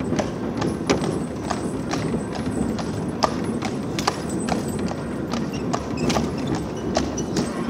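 Shod hooves of a draught horse clip-clopping on the road at a walking pace, about two to three sharp strikes a second, as it pulls a horse tram. Beneath them is a steady low rumble of the tram rolling along its rails.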